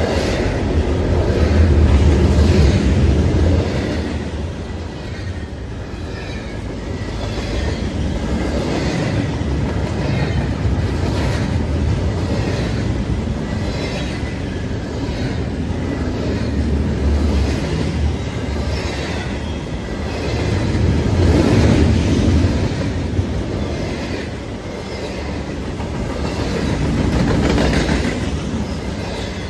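Double-stack intermodal freight train passing close by: the steady rumble of steel wheels on rail with a rhythmic clickety-clack over the rail joints. The loudness swells and fades every several seconds as the cars go by.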